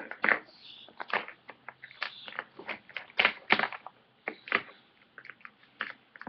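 Large plastic toy building blocks clacking against each other and being pressed together on a tabletop: an irregular run of sharp clicks and knocks, thinning out near the end.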